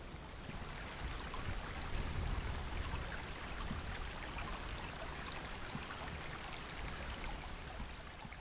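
A small stream running: a steady rush of water with scattered little splashes, over a low rumble.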